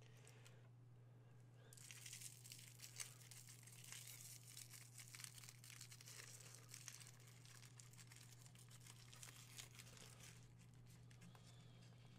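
Foil wrapper of a Lindor chocolate truffle being twisted and peeled open by hand: faint, irregular crinkling and crackling, quieter in the first second or two.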